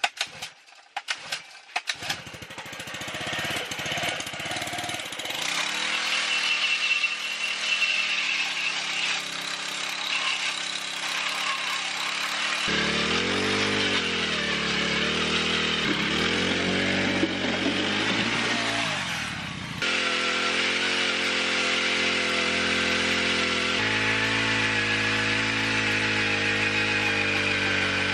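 Gas-powered ice auger engine running at high revs as its bit drills through the ice, after about two seconds of scattered knocks. Its pitch sags several times as the blades bite in.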